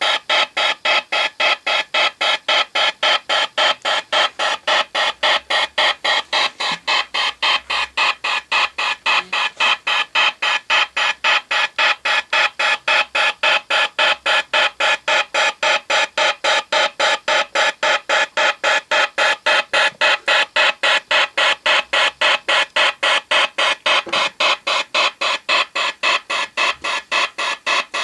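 Model steam launch's steam engine running at a steady slow speed, a regular chuffing beat about three times a second that keeps an even pace throughout.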